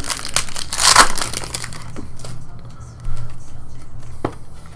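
Foil wrapper of a baseball card pack crinkling, loudest about a second in, then the softer rustle and flick of trading cards being handled and flipped through.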